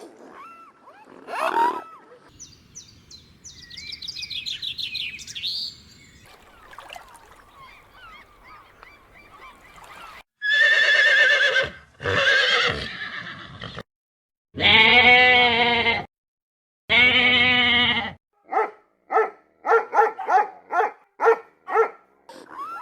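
A string of farm animal calls edited back to back: brief high chirping early on, then several long, loud pitched livestock calls with abrupt cuts between them, and finally a quick run of about eight short calls.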